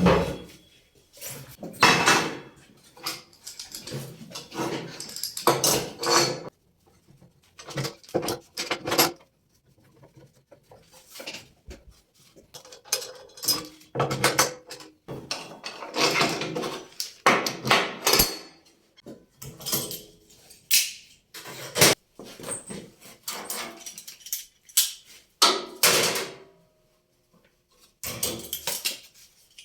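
Metal clanking, scraping and rattling in irregular bursts with short pauses between them: steel pieces and tools being handled and set down on a steel table.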